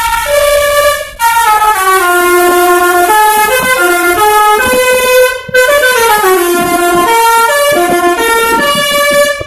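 Basuri V3 telolet bus horn, a multi-trumpet horn, playing a tune of held notes that step up and down, with short breaks about a second in and about halfway through.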